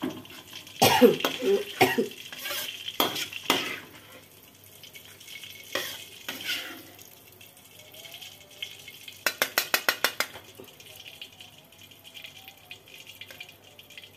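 A metal spatula scraping and knocking against a steel wok as a fried omelette is lifted out onto a slotted skimmer, with light frying hiss underneath. A quick run of about ten even ticks comes a little past the middle.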